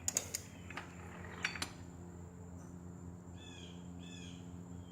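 A few sharp metallic clicks from tools in the first second and a half, then two short double chirps like a bird's, over a steady low hum.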